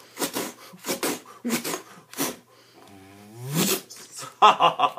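A man making mouth-made choking sound effects: a string of short, sharp breathy rasps, then a strangled voiced cry that dips and rises in pitch about three seconds in, and strained vocal noises near the end.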